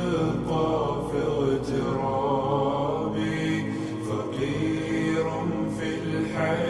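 Sad Arabic nasheed: a voice sings a slow, mournful melody over a steady held drone.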